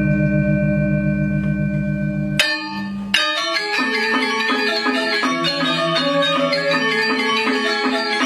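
Balinese gamelan ensemble of bronze metallophones and gongs. A sustained ringing chord pulses in the low notes, then a sharp strike comes about two and a half seconds in, followed by a brief drop. At about three seconds a loud unison accent sets off fast interlocking struck figures.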